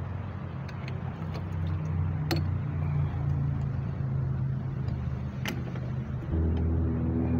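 A motor engine running steadily with a low hum, becoming louder about six seconds in. A few sharp clicks come over it, in keeping with metal pipe fittings being unscrewed by hand.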